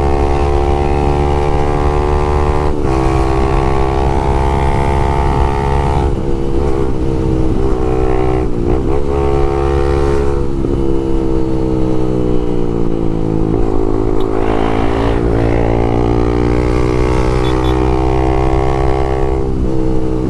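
Exhaust note of a Honda CBX 250 Twister's single-cylinder four-stroke engine through a Léo Vince aftermarket exhaust, cruising under way at fairly steady revs. The pitch sags and climbs back a few times with the throttle, over a low rush of wind on the microphone.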